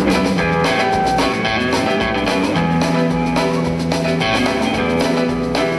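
Background music: guitar with a drum kit keeping a steady beat.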